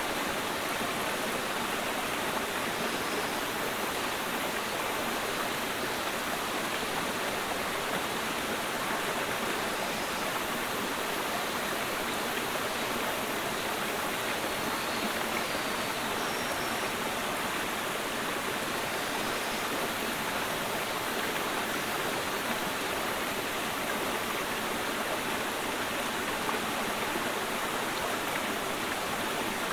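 Clear mountain stream flowing with a steady, unbroken rush of water.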